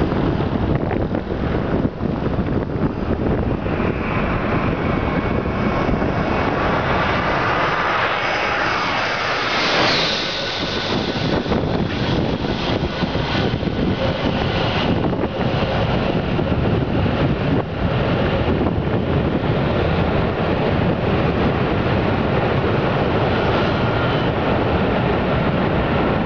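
Airliner engines whining as a landing plane passes close, the pitch sweeping up and then dropping as it goes by about ten seconds in, followed by a steady engine rumble as it rolls out down the runway. Wind buffets the microphone throughout.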